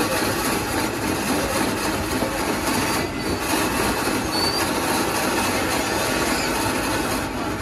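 Electric block-ice shaver running, its blade shaving a pressed-down block of ice into flakes with a steady grinding, scraping noise.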